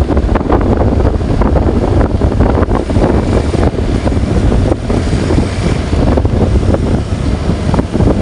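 Loud wind buffeting on the microphone of a moving vehicle, with a steady low rumble of engine and road noise underneath.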